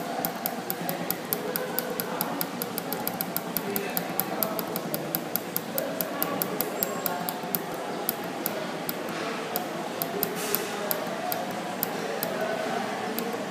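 A quick, regular run of sharp, light clicks, about four or five a second at first and slower toward the end, over a faint murmur of voices in a room.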